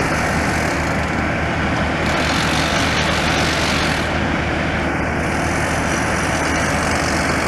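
Diesel lorry engine idling steadily close by, a constant low running with a steady hiss over it.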